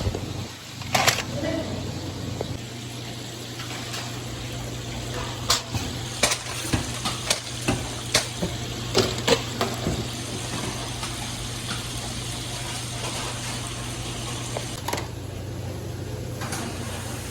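Steady hiss of chicken frying in hot oil over a constant low hum, with a run of sharp clicks and knocks midway.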